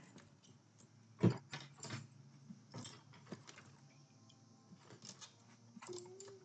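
Faint, scattered clicks and light knocks of small objects being handled, with one sharper knock about a second in.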